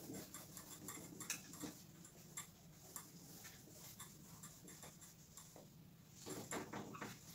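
Whiteboard duster wiping marker writing off a whiteboard: faint, irregular rubbing strokes and ticks, busier and louder near the end.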